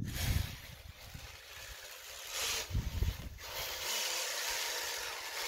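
Electric RC snowmobile's brushless motor and track running in the snow at a distance, a hissing whine that swells with the throttle about two and a half seconds in and again near the end. A few low buffets of wind on the microphone.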